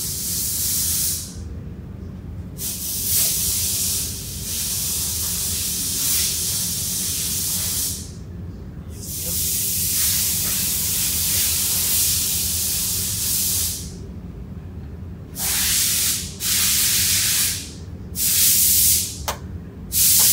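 Repeated bursts of loud hissing that start and stop suddenly, some lasting several seconds, over a steady low hum.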